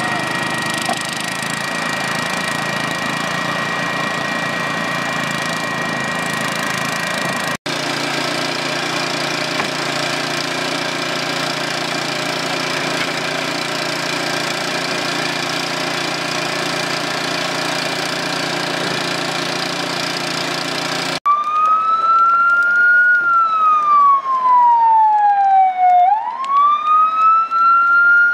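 A small engine runs steadily, as it drives the firefighters' hydraulic rescue tools. About three-quarters of the way in, a fire van's siren starts up, louder than the engine, wailing slowly down in pitch and then quickly back up.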